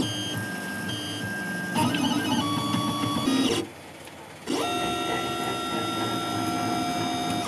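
3D printer's stepper motors whining as it drives a Sharpie pen through plotting moves. Each move gives a steady tone that jumps to a new pitch when the next one starts. The motors stop for about a second near the middle, then run again.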